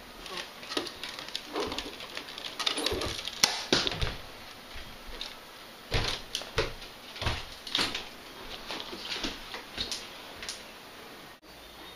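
Handheld camera handling and footsteps: irregular clicks and knocks with some rustling, loudest around three to four seconds in and again around six seconds.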